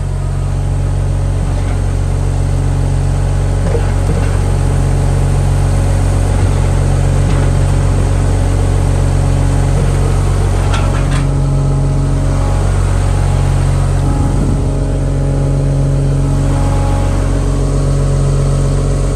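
Cummins diesel engine of a Volvo PF6170 asphalt paver running steadily with a low, even drone while the paver's hopper feeders and auger are worked.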